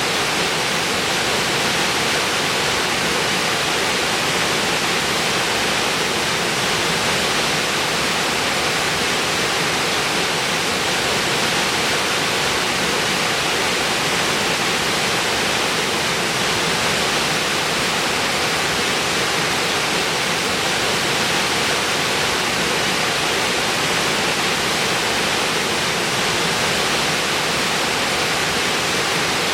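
Waterfall: a steady, even rush of falling water with no pauses or changes.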